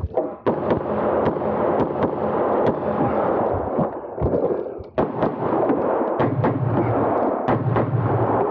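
Pistol shots fired in quick, irregular strings during a timed action-pistol stage, with a brief lull about four to five seconds in, over a steady loud background noise.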